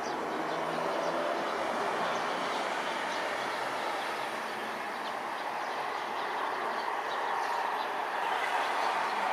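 Distant jet roar from an Embraer regional jet's turbofan engines at climb power just after takeoff, a steady rushing noise that swells slightly near the end.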